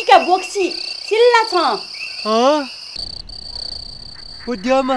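A woman's voice crying out in three wavering, pitch-bending calls over the first few seconds, against a steady high insect drone. A man's voice comes in briefly near the end.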